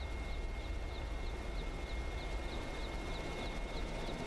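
Military helicopter in flight heard from aboard: a steady deep rotor rumble under a constant high whine, with faint light ticks a little over twice a second.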